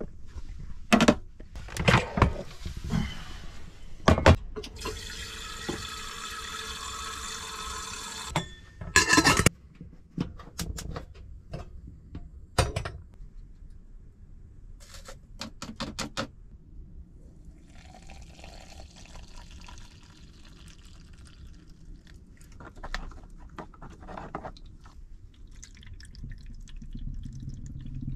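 Hand coffee-making at a small kitchen counter: clicks and knocks of containers and lids being handled, water running into a vessel for about four seconds, and later a softer stretch of water being poured.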